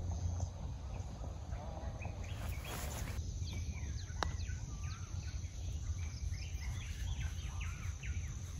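Birds calling, many short chirps and whistles, over a steady low rumble, with a single sharp click about four seconds in.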